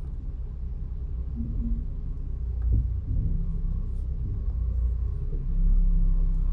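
Low, steady rumble of a car heard from inside the cabin, growing a little louder near the end.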